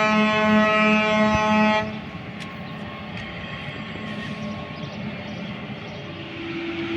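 A GE Evolution-series locomotive's air horn sounds a loud, sustained chord and cuts off suddenly about two seconds in. It is followed by the steady rumble of the train running past, with a low steady tone joining near the end.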